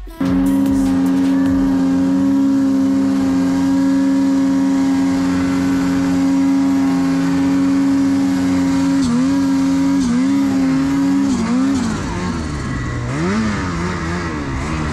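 Snowmobile engine held at a steady high pitch, then the throttle is eased and opened again several times from about nine seconds in, the pitch dipping and rising as the sled works through deep snow.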